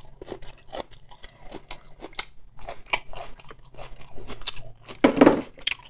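A person chewing food close to the microphone, with many short wet mouth clicks and smacks, and one louder, longer noise about five seconds in.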